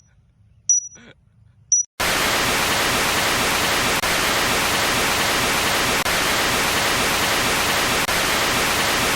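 A few short, sharp, high chirps, then a loud, even hiss of static-like noise that cuts in suddenly about two seconds in and holds at a steady level.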